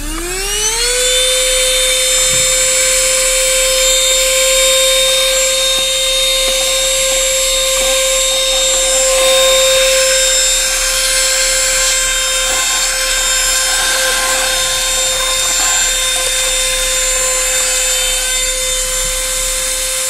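Portable rechargeable handheld vacuum cleaner switched on: its motor spins up with a rising whine over about a second, then runs at a steady high whine while the narrow nozzle sucks up dirt and small metal screws.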